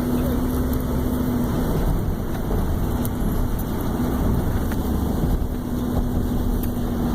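Steady rumble of a car's engine and tyres on the road, heard inside the cabin, with a low hum that fades out about a second and a half in and comes back near the end.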